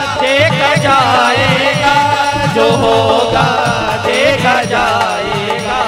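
Instrumental interlude of a devotional bhajan: a lead melody instrument plays ornamented, wavering runs over a steady drum beat.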